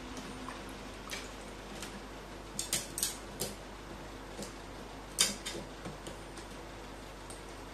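A crow's bill clicking and tapping as it pecks at a treat held under its foot on a metal ledge: a few scattered sharp clicks, a quick cluster of them about three seconds in, and the loudest tap a little past five seconds.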